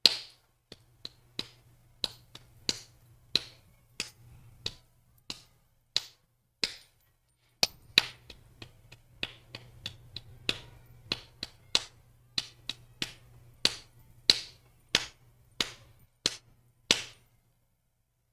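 Hands clapping a song's rhythm of eighth and quarter notes, quick pairs of claps mixed with single ones, with a short break partway through. The clapping stops near the end.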